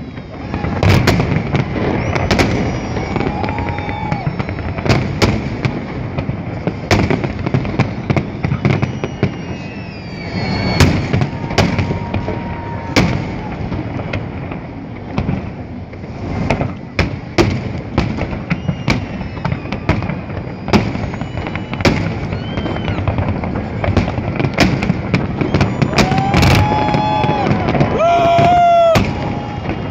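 Fireworks display: a rapid series of bangs and dense crackling, with whistling tones gliding up and down between them, strongest near the end.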